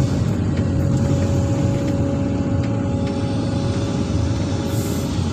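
SANY SY365H excavator's diesel engine running steadily under load while the boom and bucket move, with a steady whine over the engine's rumble.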